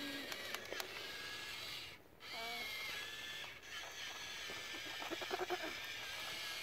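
Toy RC dump truck's small electric motor and plastic gearbox whining as it drives, cutting out briefly about two seconds in and then starting again. A burst of rapid clicking comes around five seconds in.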